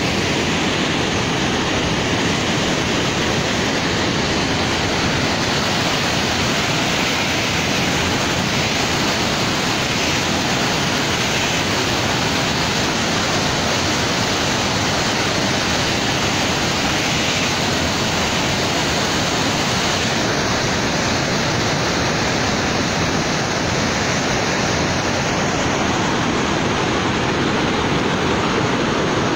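Steady rushing roar of floodwater pouring through a dam's open spillway gates and churning below.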